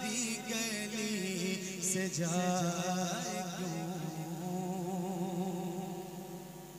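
Wordless sung melody from a naat recital, wavering vocal lines over a steady low drone, fading down near the end.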